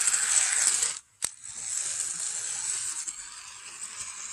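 Motorized toy Thomas the Tank Engine running along plastic track, its small motor and gears giving a steady whir. The sound cuts out for a moment about a second in and comes back after a click.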